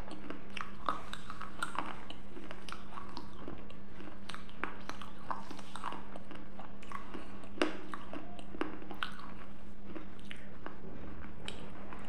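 Close-up mouth sounds of a person chewing and biting, irregular small crunches and lip clicks picked up by a clip-on microphone, over a steady low hum.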